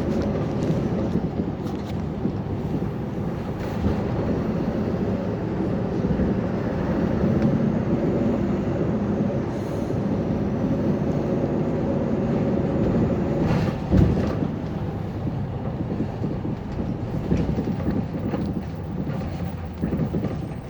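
Interior running noise of a city bus: the engine and road rumble heard from inside the cabin while it drives, with one sharp knock about fourteen seconds in.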